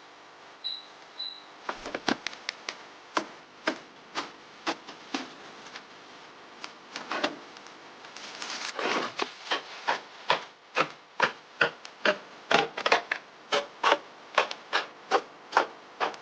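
A knife chopping produce on a wooden cutting board. The knocks start about two seconds in, uneven at first, then settle into a steady beat of about two a second. There is a short stretch of scraping partway through.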